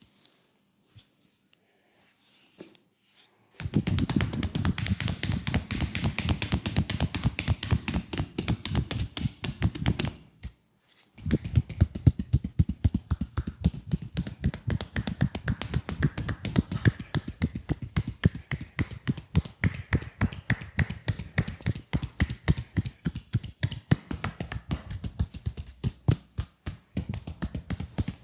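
Rapid percussive tapping of a leg massage, many quick strikes a second. It starts a few seconds in and runs in two long bursts with a brief pause between them.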